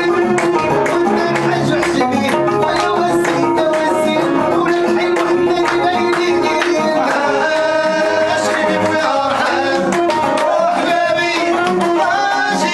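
Live Moroccan chaabi music: an upright-held violin and an electronic keyboard playing a melody with sliding notes over a fast, steady beat.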